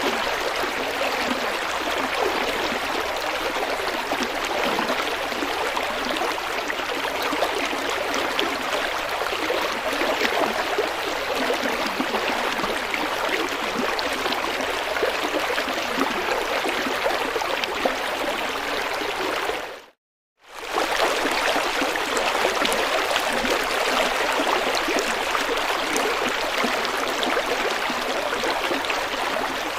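River water flowing over rocks, a steady rushing and burbling. About two-thirds of the way through it fades out to silence for half a second, then comes back.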